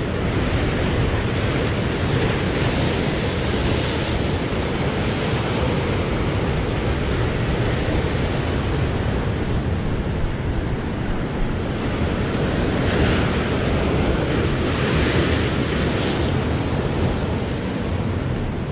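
Sea surf breaking and washing over rocks, with wind buffeting the microphone. The wash swells louder a few times, twice in quick succession about two thirds of the way through.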